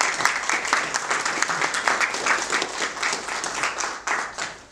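A small group applauding with many overlapping hand claps, which thin out and die away near the end.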